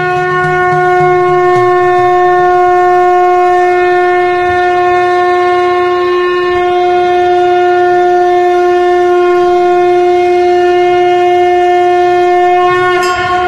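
Conch shell (shankha) blown in one long, unbroken note held for about thirteen seconds, steady in pitch. It cuts off near the end.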